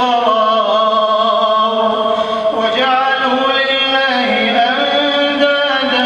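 A man's voice reciting the Quran in melodic chant (tilawah) over a mosque microphone, with long held notes that glide from one pitch to the next.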